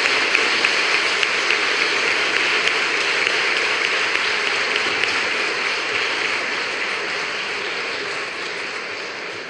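Audience applause: many hands clapping in a dense, steady patter that slowly dies away.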